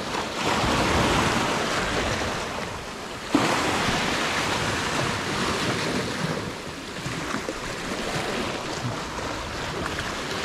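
Sea surf washing against a rocky shore, swelling and easing, with wind on the microphone. A single short knock about a third of the way in.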